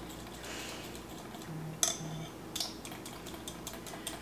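A small whisk stirring poppy seed dressing in a glass measuring cup: soft ticks and clinks against the glass, with a sharper clink about two seconds in.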